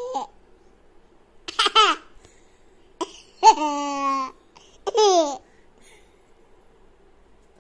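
A toddler laughing in three bursts: a quick run of giggles, then a longer held laugh, then a short one that falls in pitch.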